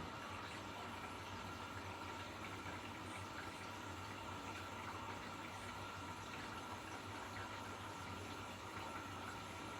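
Washing machine running its spin cycle: a steady hum from the turning drum with a rush of water.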